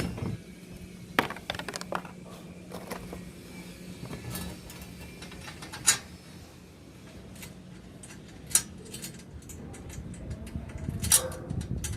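Scattered metallic clicks and knocks of hardware being handled during the solar water heater installation, with a steady low hum under the first half that fades out about halfway through.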